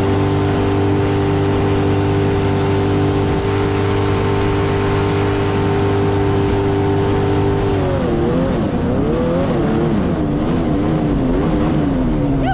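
Two-stroke engine running at steady high revs under way. About eight seconds in, its revs start rising and falling unevenly.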